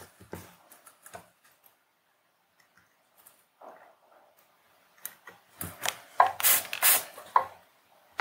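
Light clicks and taps of a small circuit board and a soldering iron being handled on a desk, growing into a dense run of clattering clicks from about five seconds in as the iron is put down and the board picked up.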